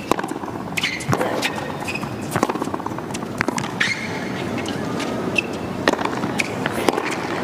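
Tennis rally on a hard court: racquets striking the ball in turn as sharp pops, with sneakers squeaking briefly on the court between shots.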